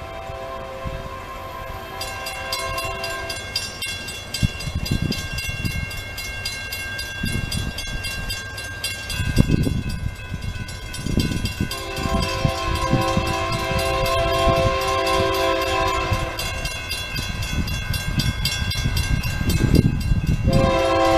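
Union Pacific diesel freight locomotives sounding a multi-note air horn in long blasts as the train approaches a grade crossing: one blast at the start, a longer one in the middle and another near the end. A crossing bell rings rapidly throughout, over a low rumble that grows louder as the train nears.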